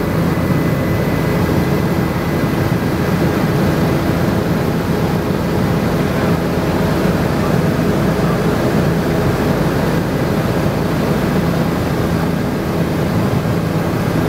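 Helicopter engine and rotor noise heard from on board: a loud, steady drone that does not change.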